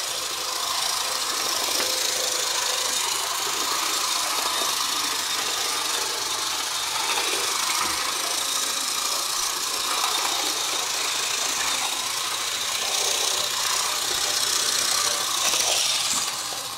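HO scale CP Rail model diesel locomotive running steadily around the track: the even whir of its small electric motor and drive with a light rattle from its running gear on the rails.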